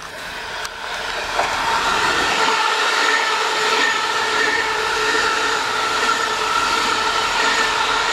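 Munich S-Bahn class 423 electric multiple unit passing close by at speed. It swells as it approaches over the first two seconds, then holds as a loud, steady rush of wheels on rail with a steady high tone over it.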